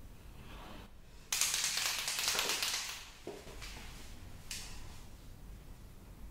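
White chalk marker drawing on window glass: a loud scratchy stroke of the tip across the glass about a second in, lasting nearly two seconds, then a light tap and a shorter stroke.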